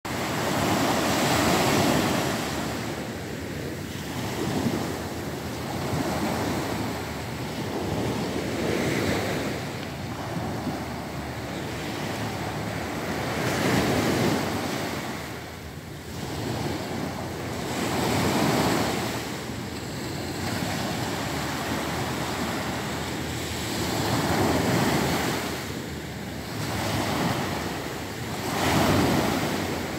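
Small sea waves breaking and washing up a sandy beach in a hiss of foam, each surge swelling and fading every few seconds.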